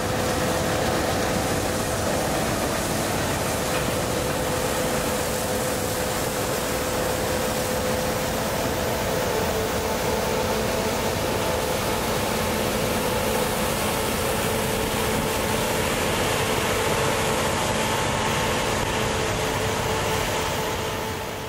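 Combine harvester and tractor-drawn chaser bin at work harvesting wheat: a steady engine and machinery drone with a constant hum, fading out at the end.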